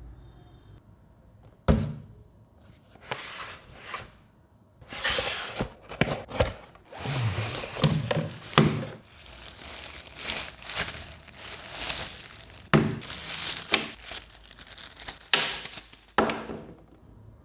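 Product packaging being handled and opened by hand: irregular thunks and knocks of a cardboard box, with stretches of rustling, crinkling and tearing of wrapping.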